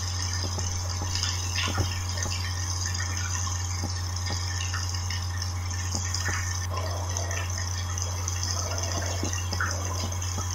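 A steady low hum with scattered small crackles and clicks and a constant hiss over it.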